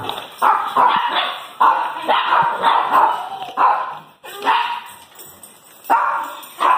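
Excited dogs barking at feeding time, a quick run of repeated barks that grows sparser after about four seconds.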